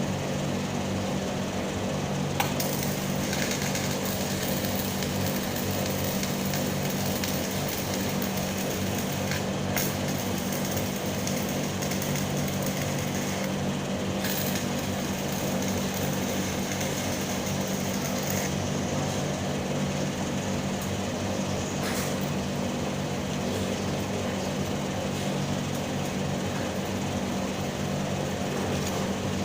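Stick (SMAW) welding arc crackling and sizzling steadily, over a steady low hum, with a few brief breaks in the crackle.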